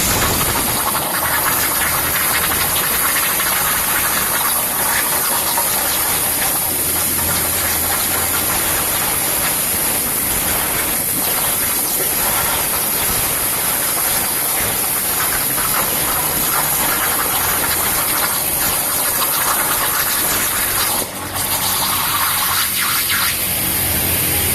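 A CNC metal-cutting machine hissing steadily as it works, with a brief drop in level about 21 seconds in.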